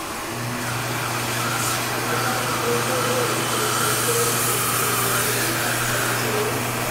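Hand dryer built into an Acorn all-in-one slab sink fixture blowing air, its motor coming on about half a second in and running steadily with a low hum under the rush of air.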